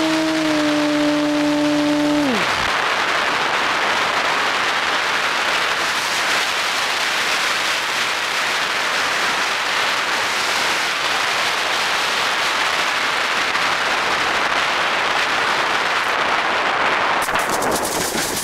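Model plane's motor and propeller humming steadily, then winding down with a sharp fall in pitch about two and a half seconds in as the power is cut. A long rush of wind on the onboard microphone follows while it glides, then a burst of crackling scrapes near the end as it skids along beach sand on landing, getting sand into the motor.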